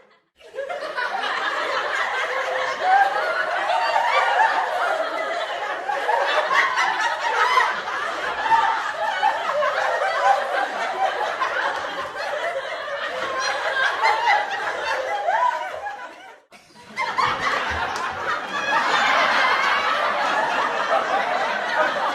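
Canned studio-audience laughter from a laugh track: a crowd laughing steadily. It dies away about sixteen seconds in, and a second take of crowd laughter starts a moment later.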